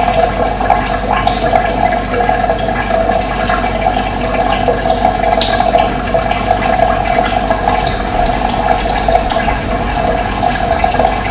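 Running water gurgling steadily, with a few short, high bird chirps over it.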